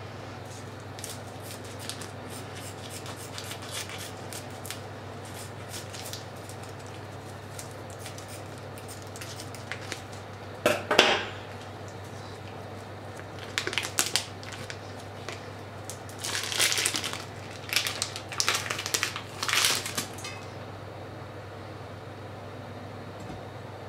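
Plastic food packaging crinkling and rustling as a salmon fillet is snipped out of its bag with kitchen scissors and pulled free, in short bursts: light snips and clicks at first, a loud crinkle about eleven seconds in, then a run of rustling between about 13 and 20 seconds. A steady low hum runs underneath.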